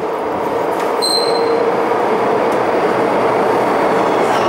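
Out-of-service MTR Island Line train running through an underground station at high speed without stopping: a steady rushing rumble of wheels on rails with a steady hum, and a short high-pitched wheel squeal about a second in.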